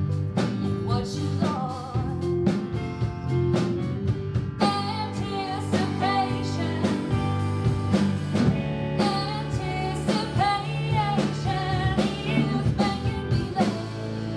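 Live band music: a woman singing a folk-rock song over acoustic guitar, electric guitar and drum kit.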